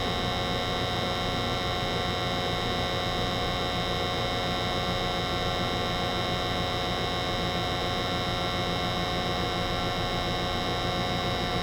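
Steady hum of a 90%-efficiency American Standard gas furnace running with its burners firing and the draft inducer motor on, the circulating blower not yet started. The pitch and loudness stay even.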